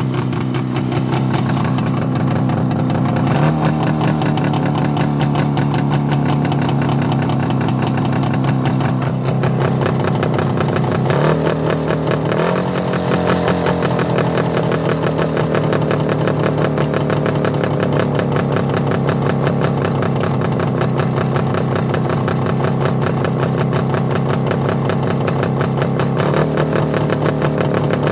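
Motorcycle engine running steadily at low revs. Its pitch steps up slightly a few times, about three seconds in, twice around eleven to twelve seconds and again near the end, and eases back slowly in between.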